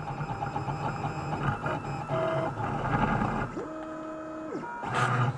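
Printrbot Simple Metal 3D printer printing: its stepper motors whir and whine at shifting pitches as the print head moves. One tone is held for about a second, gliding up at its start and down at its end. A brief sharp noise comes near the end.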